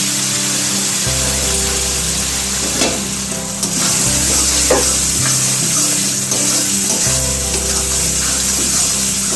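Spice paste frying in hot mustard oil in a pan, sizzling steadily, with a spatula stirring and scraping a couple of times.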